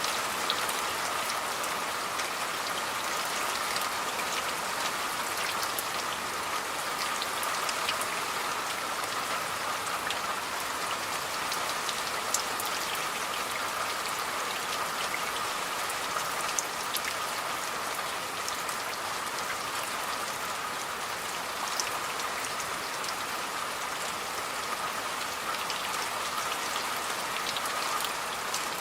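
Steady rain falling, an even hiss with scattered sharp drop ticks throughout.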